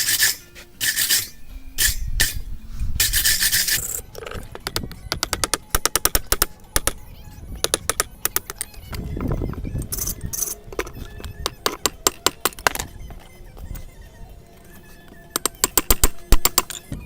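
A few scraping strokes on hot steel in the first few seconds, then quick runs of hand-hammer blows on the anvil, drawing out and flattening a forged knife blade, with a pause near the end before a last run of blows.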